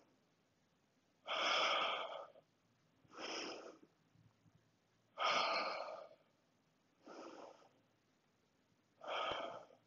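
A woman breathing deeply and audibly while holding a yoga lunge. Five breaths come about two seconds apart, alternating longer, louder ones with shorter, softer ones.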